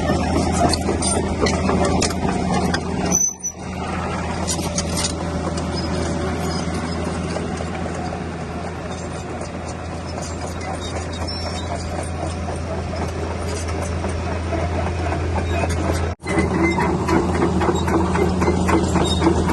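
Excavator's diesel engine running steadily, with scattered squeaks and clicks from the machine working. The sound cuts out briefly twice.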